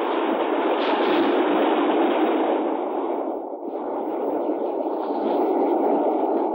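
Sea surf on a sandy beach: the steady rush of breaking waves, swelling and easing, with a brief lull about halfway through.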